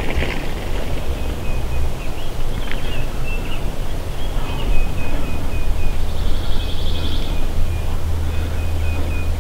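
Low wind rumble on the microphone, with faint high bird calls repeating throughout and a short trill about six seconds in.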